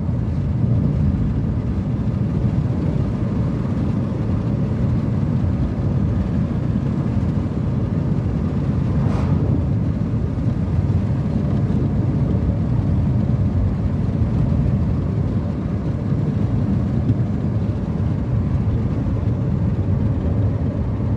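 Steady low rumble of a car driving at road speed, tyre and engine noise heard from inside the cabin, with a brief faint swish about nine seconds in.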